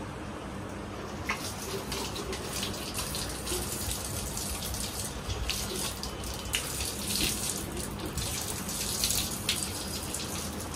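Bathroom tap running and water splashing as a person rinses their face with cupped hands; the splashing starts about a second in and goes on in uneven splashes.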